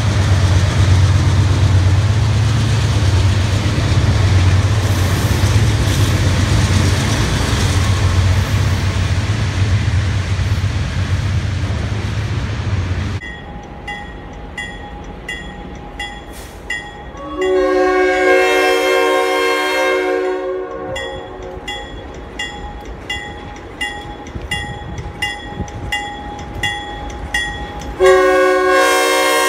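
A diesel freight locomotive passing close, with a steady heavy rumble of engine and wheels. After a cut, a grade-crossing bell rings steadily while an ex-CSX GE C40-8W locomotive sounds its multi-chime air horn: one long blast about halfway through and another starting near the end.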